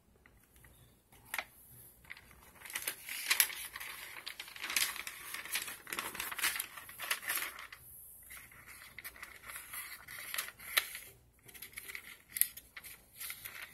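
Paper rustling and crinkling as sheets are handled, with scattered sharp clicks and taps, in two stretches with a short pause about eight seconds in.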